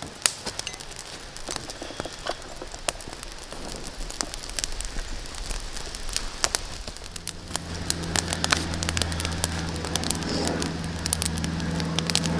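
Small campfire of damp twigs and birch bark crackling and popping as it catches and begins to flame. A low steady hum joins about seven seconds in.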